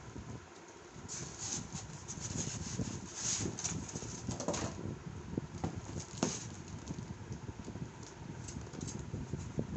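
Irregular rustling with scattered light clicks and knocks, as of objects and packaging being handled.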